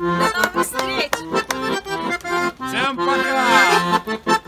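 Piano accordion, a Royal Standard, playing a lively tune with rhythmic chords.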